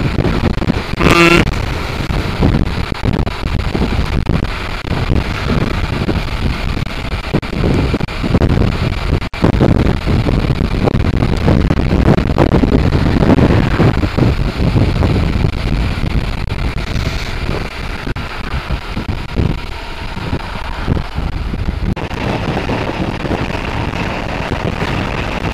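Wind buffeting the microphone over the running engine and road noise of a motorcycle at road speed, with a brief dropout about nine seconds in.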